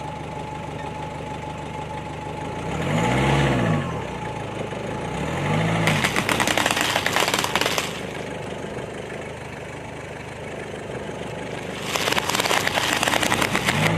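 A car engine running, with brief revs that rise and fall in pitch, about three seconds in, again near six seconds and at the end. Between them come two stretches of dense crackling and crunching, about six and twelve seconds in, as objects are crushed under the tyre.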